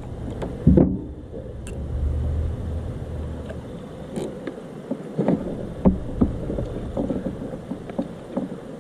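Scattered knocks and bumps on a kayak as gear is handled while landing a large catfish, over a low rumble that swells for a second or so near the start.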